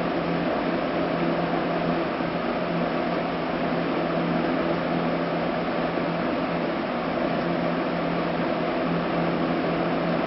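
Steady mechanical hum with a constant low tone and an even hiss, unchanging throughout.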